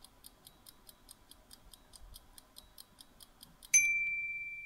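Quiz countdown-timer sound effect: faint clock-like ticks, about four a second, then a single loud bell-like ding near the end as the timer runs out, ringing down until it is cut off.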